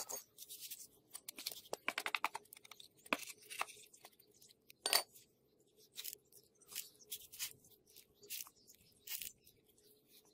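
Gloved hand pressing and brushing across fine sand: scattered gritty crunches and scrapes, with a quick run of grainy rasps about two seconds in and a sharper click about five seconds in.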